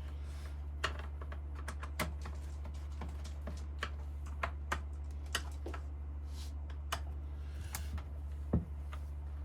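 Irregular small clicks and taps of a hand tool working the top cover screws of a Husqvarna 394XP/395XP chainsaw as they are loosened, with one louder knock near the end, over a steady low hum.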